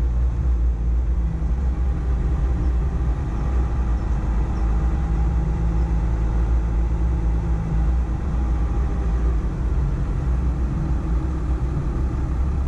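Volkswagen Amarok pickup's engine running steadily, a low rumble with no change in pitch.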